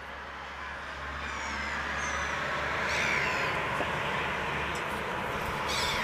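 A few short, high, falling gull cries over a steady urban traffic hum that swells to a peak about halfway through and eases off.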